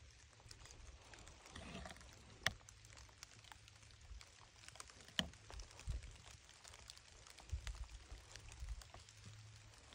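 Faint scattered crackling and rustling of dry leaf litter, with two sharp clicks, one about two and a half seconds in and one about five seconds in, and a few low thumps toward the end.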